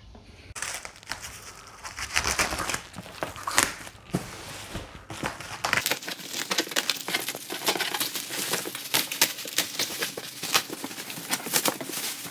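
Parcel packaging being unwrapped: wrapping crinkling and tearing, with dense, irregular rustles and sharp clicks of handling.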